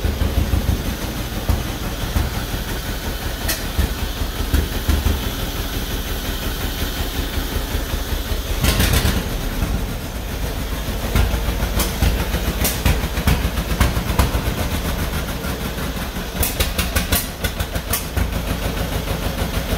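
1949 John Deere B's two-cylinder engine running with an uneven popping beat on its first start after a rebuild, not yet running smoothly. A few sharper cracks stand out about halfway through and again near the end.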